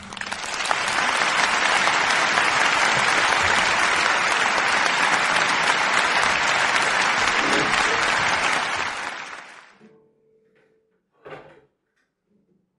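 Audience applauding, steady and dense for about nine seconds, then dying away. A single knock follows a little over a second later.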